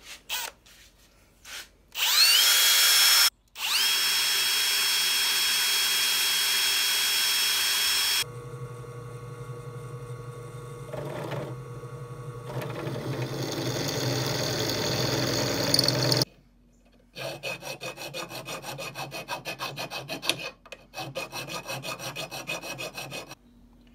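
Cordless drill spinning up with a high whine in two runs as it bores pilot holes in a steel steering bracket, then a bench drill press motor running steadily with a hum while drilling the bracket. Near the end comes a fast pulsing sound lasting several seconds.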